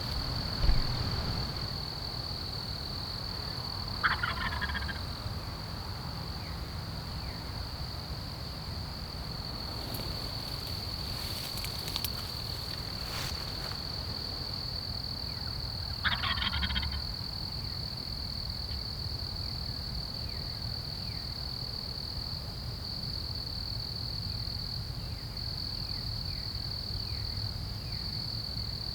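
A wild turkey gobbler gobbling twice, about twelve seconds apart, each gobble a quick rattle under a second long. A steady high-pitched insect drone runs behind.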